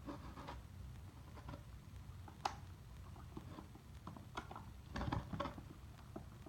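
Scattered small clicks and handling noises, with one sharp click about two and a half seconds in and a short cluster of louder rattling around five seconds.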